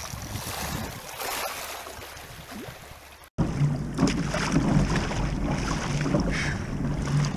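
An even hiss fades and cuts off sharply about three seconds in; then wind rumbles on the microphone while the double-bladed kayak paddle dips and splashes in the sea.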